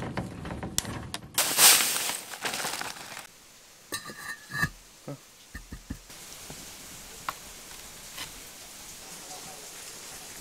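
Hand masonry and rebar work: a loud rough noise for about two seconds, then a handful of separate knocks and taps, then a faint steady background with a few light ticks.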